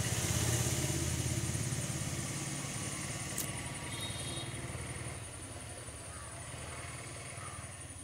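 A motor vehicle engine running close by, its low drone fading away over the first five seconds, with a steady high insect trill throughout and a sharp click about three and a half seconds in.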